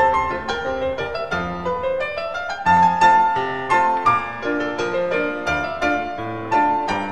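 Piano music playing: a quick melody of struck notes over a bass line.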